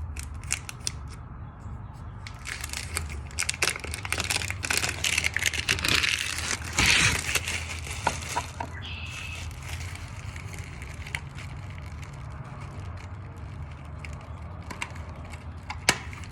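An old doorbell being pried off the wall with a wedge: crackling, scraping and sharp cracks, densest and loudest about six to seven seconds in, then only scattered clicks.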